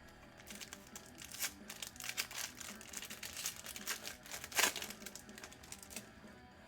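Wrapper of a Bowman baseball card pack crinkling and tearing as it is ripped open, with the loudest rip about four and a half seconds in. Quiet background music underneath.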